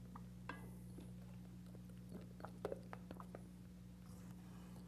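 Faint, soft scrapes and taps of a spatula folding beaten egg whites into batter in a metal mixing bowl, over a steady low hum.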